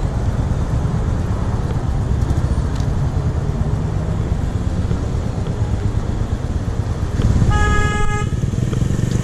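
Steady low rumble of road traffic while moving through a city, with one vehicle horn honk about seven and a half seconds in, lasting under a second.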